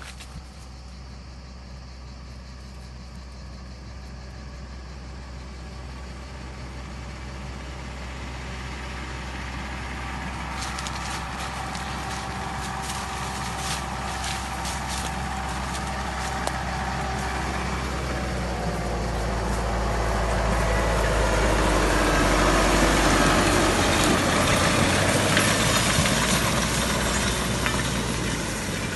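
Carraro Agricube narrow vineyard tractor's diesel engine running steadily as it drives along the row, growing louder as it comes close and passes, loudest a little after two-thirds of the way through. A patch of sharp crackling clicks comes near the middle.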